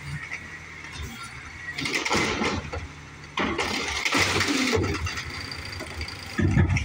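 Natural-gas side-loading garbage truck running while its automated arm dumps a wheeled trash cart: the engine hums steadily under rattling surges as the cart is shaken out over the hopper, and a heavy knock comes near the end as the arm sets the cart back down.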